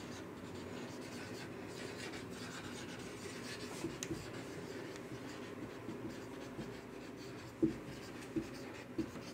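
Marker pen writing on a whiteboard: a faint, steady scratching of the tip across the board as words are written out, with a few short clicks of the tip near the end.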